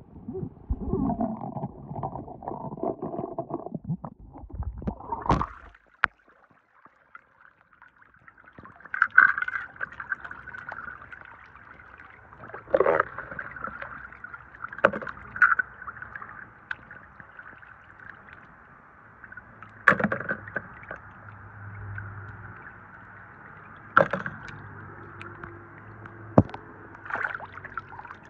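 Water splashing and sloshing as small toy cars are handled and rinsed by hand in a basin, with a steady watery hiss through the second half and several sharp knocks of the cars against the hard basin.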